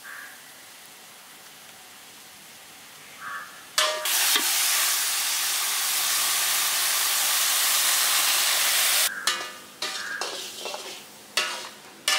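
Boneless mutton frying in a black iron kadai as a steel ladle stirs it, with the meat's own juices cooked down. A faint hiss at first, then about four seconds in a loud, even sizzle that cuts off suddenly some five seconds later, followed by a few knocks of the ladle.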